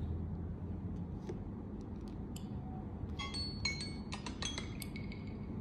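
Several smartphones' countdown timer alarms going off together from about three seconds in, overlapping chiming electronic tones at several different pitches. Before that, a few light taps on the touchscreens.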